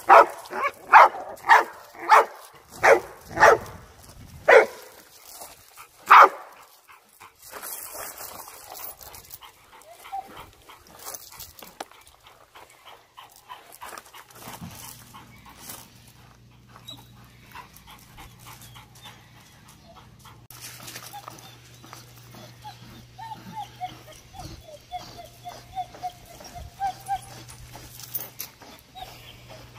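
A dog barking about twice a second for the first four or five seconds, with one more bark about six seconds in. From about twenty seconds in, a dog whining in short, high-pitched whimpers.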